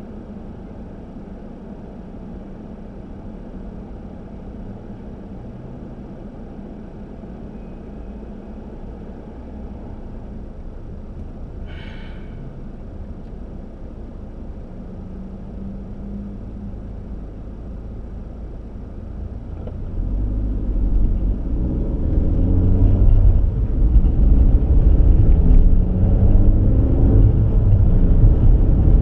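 Low rumble of a car in motion, growing much louder about two-thirds of the way through, with a short high squeak near the middle.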